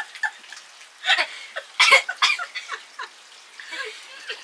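A few short, breathy bursts of laughter and voice from a small group of people, trailing off from a fit of laughing.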